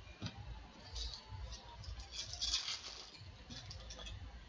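Baseball trading cards being handled and flicked through by hand on a tabletop: faint papery rustling and light card-edge clicks, busiest from about one to three seconds in.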